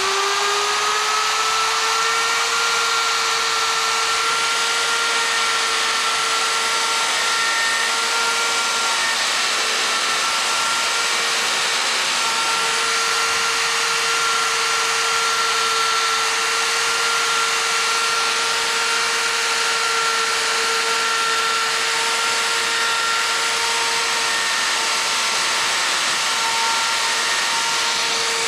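Electric die grinder running steadily at high speed with a steady whine, its carbide burr cutting aluminum as it deburrs the sharp edges left by fly-cutting the valve reliefs in a piston crown.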